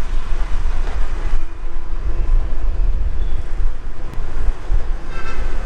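Road and wind noise from a moving vehicle in city traffic: a loud, steady low rumble.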